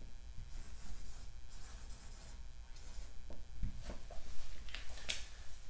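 Marker writing on a whiteboard: a series of short, faint scratchy strokes, the strongest a little before the end.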